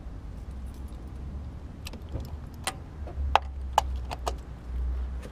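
Ratchet, extension and spark plug socket clicking and clinking as a spark plug is snugged down and the tools are worked out of the plug well. It is a handful of sharp, irregular metal clicks in the second half, over a low steady rumble.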